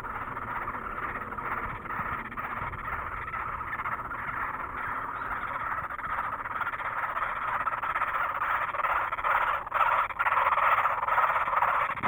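Great spotted woodpecker nestlings begging inside the tree-hole nest: a continuous, dense churring chorus that grows louder toward the end.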